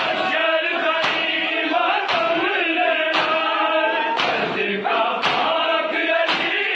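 A group of men chanting a Punjabi noha in unison, with chest-beating (matam) slaps about once a second keeping its beat.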